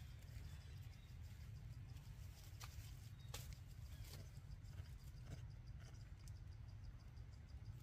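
Faint outdoor ambience: a steady low rumble with a few soft scattered clicks, and faint insects chirping in an even ticking rhythm that grows clearer in the second half.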